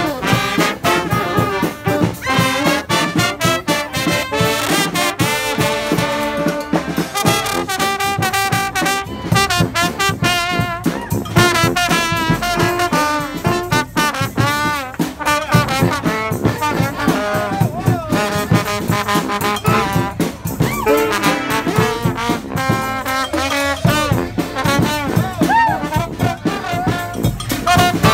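Street marching band playing a lively tune: trumpets and trombones in full ensemble over drums keeping a steady beat.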